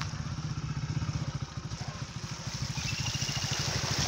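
Motorcycle engine running with a fast, even low pulsing. From about halfway a rushing hiss grows over it.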